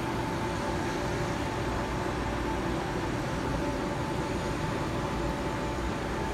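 Steady mechanical background hum with a faint constant high tone running through it.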